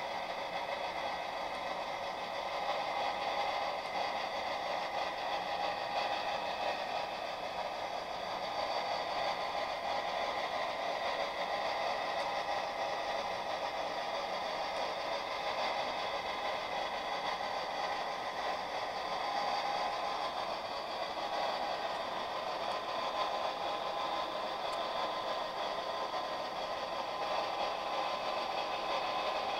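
HO-scale model freight train running along the track: a steady whir and clatter from the locomotive's motor and the wheels on the rails.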